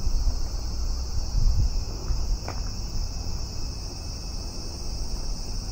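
Steady, high buzzing chorus of cicadas, with a low rumble of wind on the microphone and a single faint tick about two and a half seconds in.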